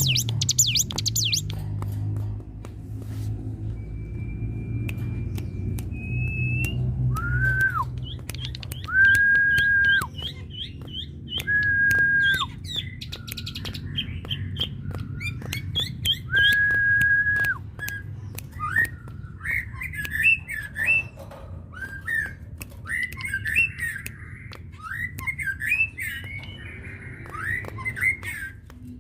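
A songbird singing. Long, level whistled notes come a few seconds apart among rapid high chips, and after about 18 seconds they give way to quicker rising and falling phrases.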